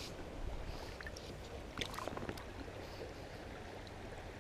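River water running over a shallow gravel riffle, a steady low wash with a few faint ticks about two seconds in.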